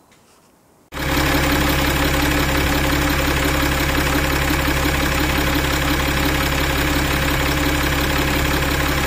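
Citroën C6 engine idling, heard close up at the drive belt and pulley: a loud, steady running sound with constant tones in it, cutting in abruptly about a second in.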